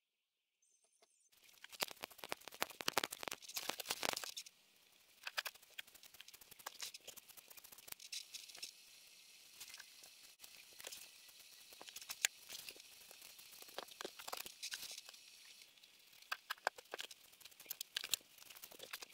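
Quilting fabric being handled: irregular, crinkly rustling with many small clicks, starting about a second in and loudest for a couple of seconds after that.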